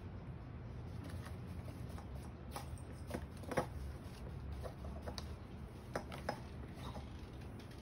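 A kitten's claws scraping and tapping on a corrugated cardboard scratcher in short, irregular scratches, bunched about three seconds in and again around six seconds in, over a low steady hum.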